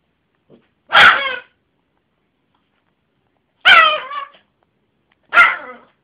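Yorkshire terrier barking three times, loud and high, the first about a second in and the other two close together near the end; each bark is short and drops in pitch as it ends.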